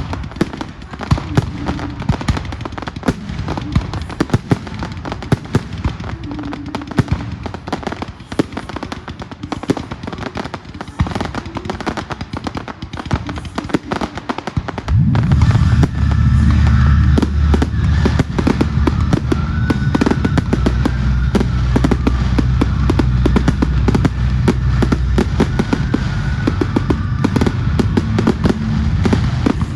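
Fireworks display: a dense, continuous run of crackles and bangs. Music with a heavy bass line plays underneath, getting much louder about halfway through.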